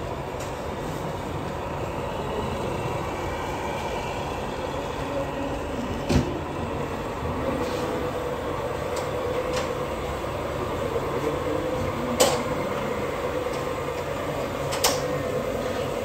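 Hydraulic pump of a radio-controlled scale truck's loader crane whining steadily as the crane and grab work. Three sharp knocks come about six, twelve and fifteen seconds in.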